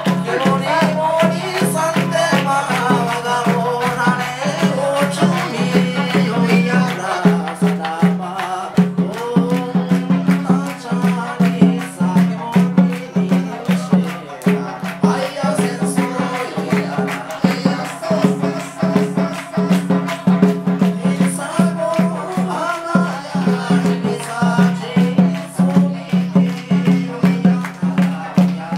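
Okinawan folk band playing a fast kachāshī dance tune live, with a sanshin melody, singing and a quick rattling beat.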